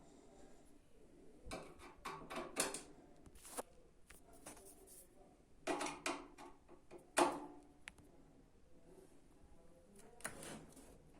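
Hands working on a washing machine during disassembly: three short bouts of knocks, clicks and scraping from parts and tools being handled, the sharpest knock about seven seconds in.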